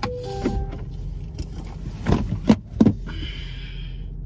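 Steady low hum of a car cabin with the engine idling, and about two seconds in, three sharp clicks and crinkles of a paper takeout bag and food containers being handled.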